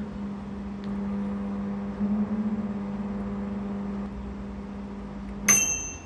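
Microwave oven running with a steady hum, then its bell dings once near the end as the heating cycle finishes.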